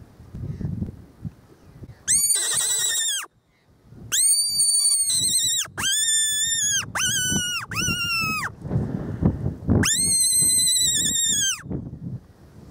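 Fox whistle blown in six short, high-pitched squealing cries in imitation of a distressed animal, each arching up and dropping off at its end, the first harsher than the rest. It is a predator call meant to draw a fox in.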